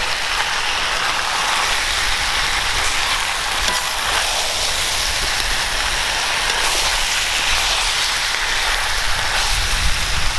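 Food sizzling in a hot cooking pan, a steady, even hiss.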